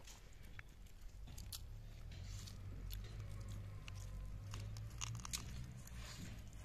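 A person biting into and chewing a piece of chicken from a masala curry held in the fingers, with scattered small clicks of mouth and food over a faint low rumble.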